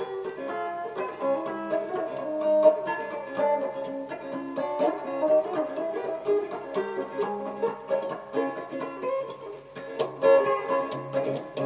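Electric guitar playing a fast bluegrass-style instrumental passage of quick picked notes.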